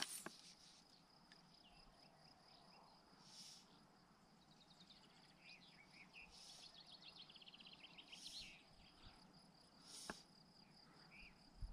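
Near silence apart from a faint, steady high-pitched insect trill, with a few faint bird chirps partway through.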